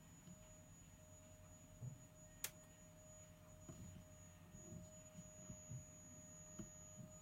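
Near silence: room tone with a faint steady hum and one sharp click about two and a half seconds in.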